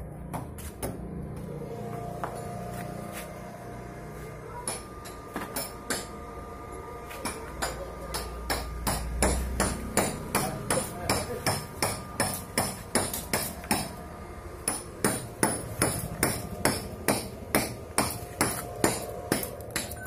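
Hand hammer striking a chisel to chip concrete at the foot of a wall, for setting a folding garage door frame. The blows are irregular at first, then settle into a steady beat of about two a second.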